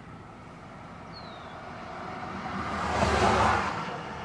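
A vehicle passing by, its tyre and engine noise swelling to a peak about three seconds in and then fading. A short, falling bird chirp is heard about a second in.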